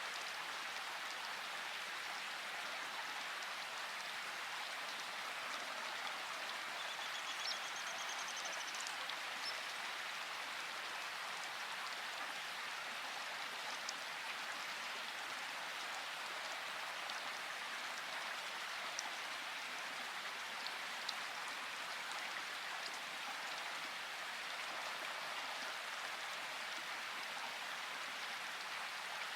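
Steady rain falling in a forest, an even hiss with scattered drops ticking. A brief faint high-pitched trill sounds about seven seconds in.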